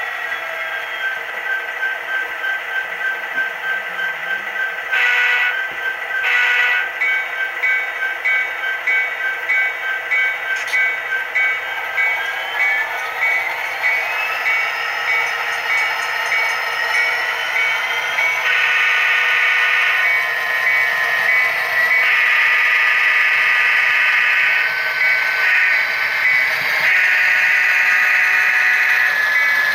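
HO scale diesel locomotive sound decoder played through the model's onboard speaker: a bell rings steadily, the engine sound revs up about halfway through, and then long horn blasts sound in the second half.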